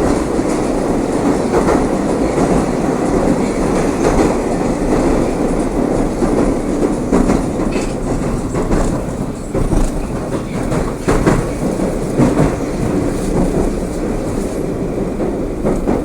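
Moscow metro train running through the tunnel, heard from inside the carriage: a steady, loud rolling rumble of wheels on rails with scattered clicks and knocks from the rail joints.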